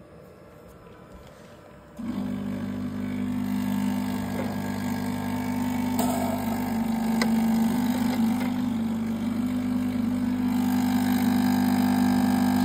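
Water pump of a Necta Koro Max Prime coffee vending machine switching on about two seconds in and buzzing steadily as the boiler tries to fill, which it will not manage to do.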